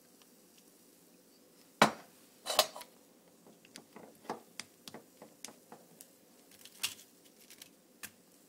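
Eggs and their cardboard carton being handled: a sharp knock about two seconds in and a second one shortly after, then a run of light taps and clicks.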